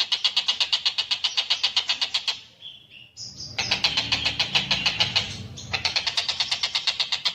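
Tengkek buto kingfisher giving a rapid, rattling chatter of sharp notes, about ten a second. It breaks off briefly about two and a half seconds in, with a few short high notes, then starts again.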